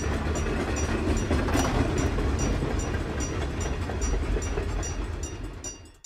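Train running over rails: a steady low rumble with light regular clicking about two or three times a second, fading out near the end.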